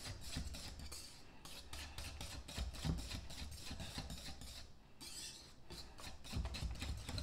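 Wire whisk beating thick barbecue sauce and grape jelly in a glass mixing bowl, its wires scraping and clicking against the bowl in quick, rhythmic strokes.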